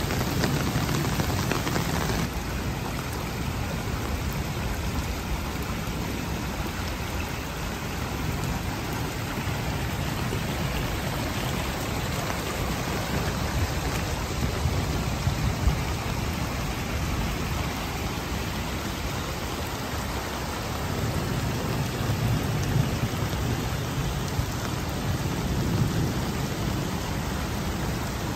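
Stormwater overflowing a retention pond and rushing across grass and over low obstacles as a steady wash of moving water.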